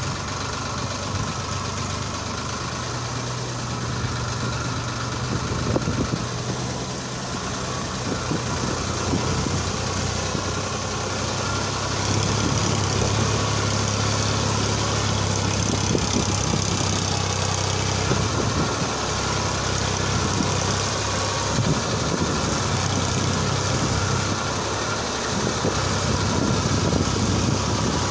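Farmtrac 60 tractor's diesel engine running steadily as it pulls a trolley fully loaded with soil, a low hum that grows louder about twelve seconds in.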